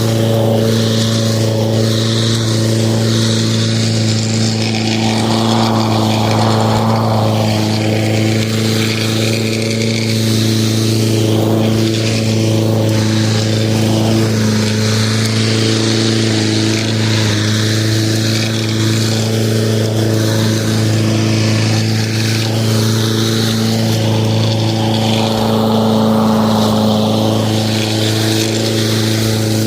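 Lawn mower running steadily with an even hum. Twice, a rushing hiss swells up over it and fades again.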